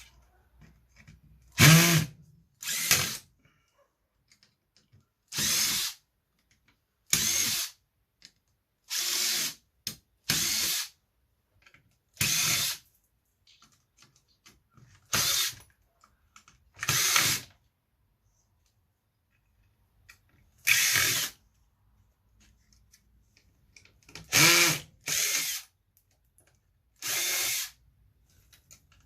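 Power drill running in short bursts of about a second, some fourteen times with pauses between, as screws are driven out to free a computer's circuit board.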